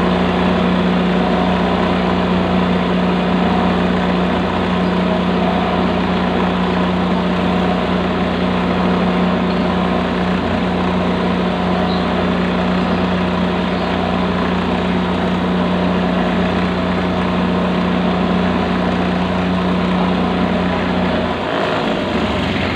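Shoe finishing machine's motor and spinning sanding wheels running steadily with a hum, while the edge of a sandal footbed is pressed against a wheel and sanded. Near the end the hum stops.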